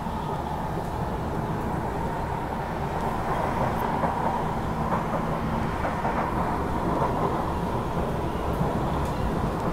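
Inside a C151 MRT train running between stations: a steady rumble of wheels on rail, with a steady tone held throughout, getting a little louder about three seconds in.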